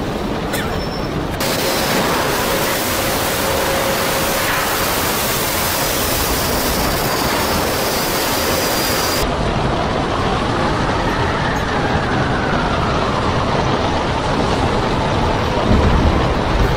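Storm wind and heavy seas heard aboard a ship: a loud, steady rush of wind and breaking water. Its character changes abruptly twice, and a faint whistle rises and falls in the middle.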